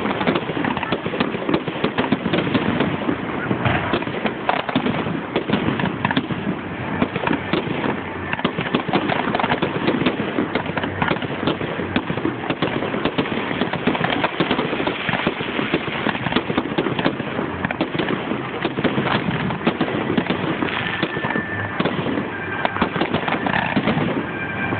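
Fireworks display: a dense, continuous crackle of many quick bangs and pops with no let-up, recorded through a phone's microphone.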